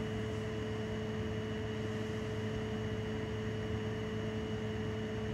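Steady background hum with a few held tones over an even hiss, unchanging throughout.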